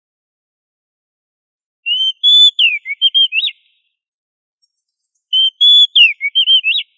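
Oriental magpie-robin (kacer) singing two matching whistled phrases, about two seconds in and again about five seconds in. Each phrase has a couple of clear held notes, a falling slide, then a quick run of short notes ending in a sharp up-and-down note.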